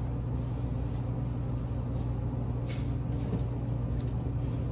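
A steady low hum with a few faint clicks about two and a half to four seconds in.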